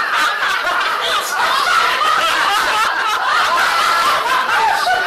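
A man laughing, with other people laughing along around him.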